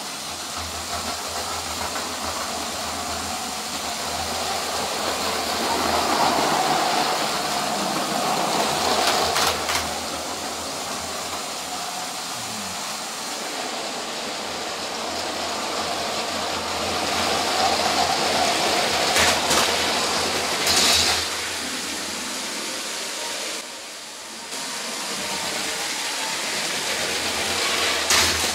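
Battery-powered LEGO train motors whirring as the trains run on plastic track, with a few sharp knocks along the way.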